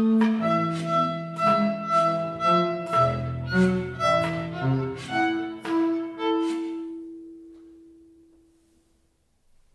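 Chamber ensemble of flute, clarinet, violin, double bass, piano and percussion playing contemporary music live: a run of sharp accented chords about two a second, then the sound dies away over a few seconds. One held note lingers and fades out near the end.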